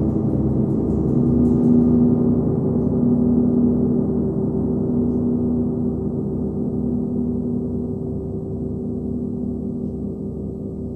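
A 39-inch Nepalese wind gong, played with a homemade hard rubber ball mallet, ringing in a dense low hum with a slow throbbing beat of a few pulses a second. The sound swells about two seconds in, then slowly fades.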